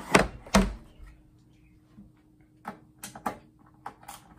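Two loud knocks close together, then a few lighter clicks, from hard objects being handled and set down.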